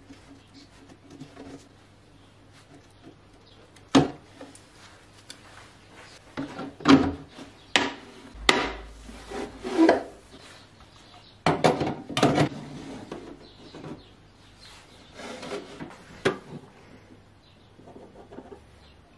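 Handling a plastic jug and pipe: irregular sharp clicks and knocks mixed with short scraping and rubbing as the jug is cut with scissors and a plastic pipe is pushed and fitted into it.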